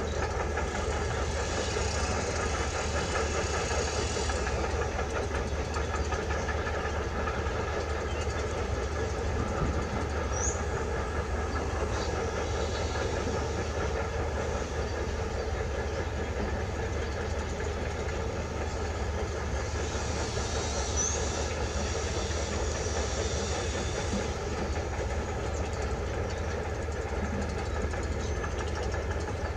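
Kubota M9540 tractor's four-cylinder diesel engine running steadily while the tractor works the soil.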